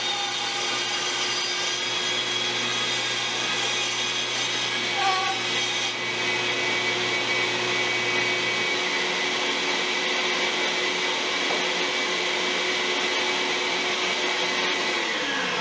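A King bandsaw rips a western red cedar paddle blank while a dust collector runs alongside with a steady hum. About two-thirds of the way through, the low cutting rumble stops. Near the end the motors are switched off and their tone falls in pitch as they coast down.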